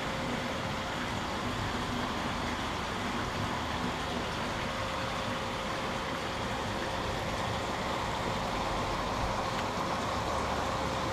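Steady rushing noise of circulating water and pump filtration in a koi tank, with a constant faint hum underneath.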